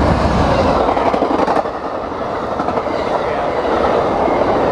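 Amtrak passenger train passing close by at speed: the diesel locomotive's low engine rumble fades over the first second or so, then the passenger cars rush past with steady wheel-on-rail noise.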